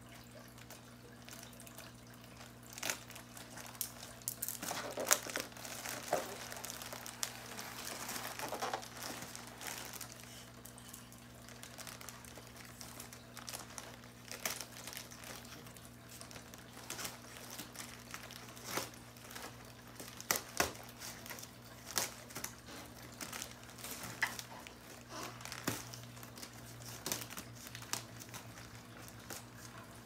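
A plastic courier mailer bag crinkling and rustling as it is cut open with small scissors, with many short, sharp snips and crackles scattered throughout.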